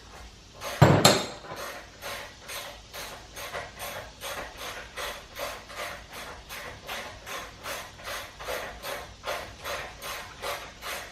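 Hand ratchet wrench clicking in a steady rhythm, about three strokes a second, with one loud metallic knock about a second in.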